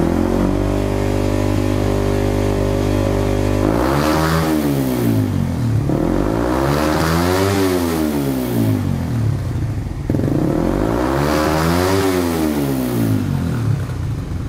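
Motorcycle engine through an aftermarket Smoke carbon muffler fitted with its stock end-cap dB killer, idling and then revved three times, each rev rising and falling in pitch. The dB killer lowers the volume but leaves the note tinny and raspy, "prepet-prepet", not full and bassy.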